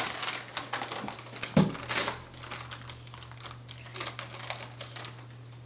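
Plastic treat bag crinkling as it is handled, a quick run of crackles that thins out after about two and a half seconds, with a single dull bump about one and a half seconds in.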